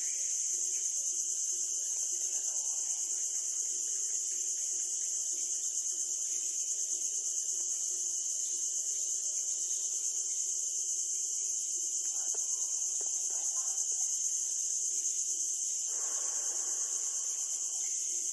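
Steady, high-pitched drone of an insect chorus, unbroken and even in level throughout.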